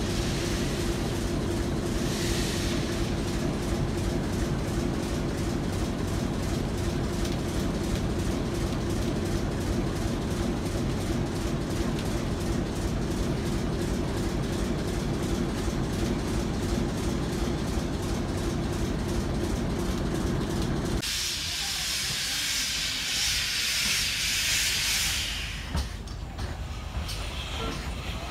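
A departing train with a steady engine drone, its tone held level, and faint regular ticks for about twenty seconds. Then the sound cuts to a loud steam hiss from GWR 2-8-0 tank locomotive 5239 venting steam low by its wheels. The hiss fades after about four seconds.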